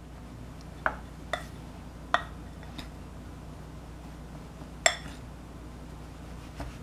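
A metal spoon clinking against a glass mixing bowl while a dry almond-and-sugar mixture is stirred. There are about five sharp clinks, each with a brief glassy ring, spaced irregularly.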